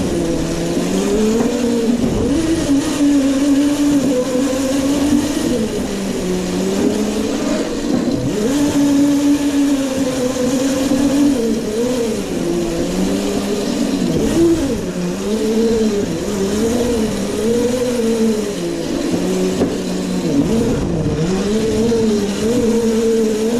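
Razor Crazy Cart XL's electric drive motor whining, its pitch rising and falling over and over as the cart speeds up and slows.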